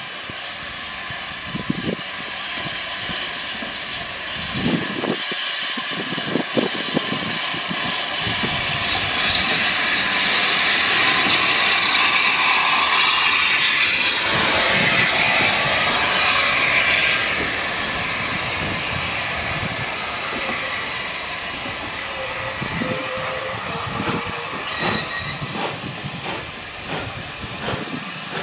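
Steam-hauled train of vintage coaches running through a station. It gets louder as the locomotive approaches and passes close, and is loudest in the middle. The coaches then roll by with wheel clatter on the rails and high wheel squeal near the end.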